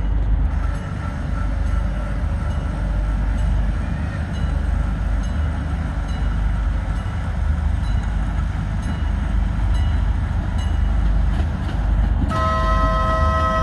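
Steady low rumble, then about twelve seconds in an approaching train's horn sounds a steady chord of several notes and holds it.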